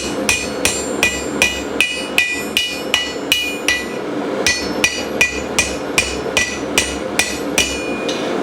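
Hammer blows on hot steel over the anvil horn, bending a scroll into the end of a bar: a steady run of ringing strikes about three a second, with a short pause about four seconds in.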